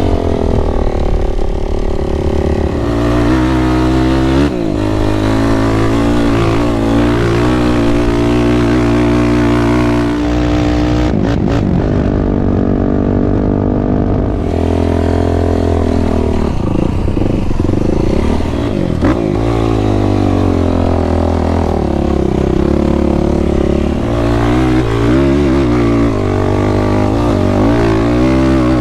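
Sport ATV engine running hard while being ridden, its pitch holding steady, then dropping and climbing again several times as the throttle is worked.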